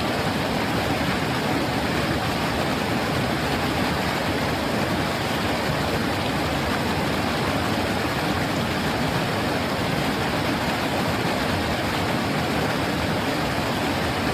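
River water flowing over a shallow stony bed, a steady rushing babble with no change.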